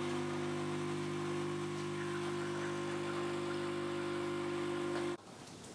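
Espresso machine pump humming steadily while a shot brews into two cups, cutting off abruptly about five seconds in.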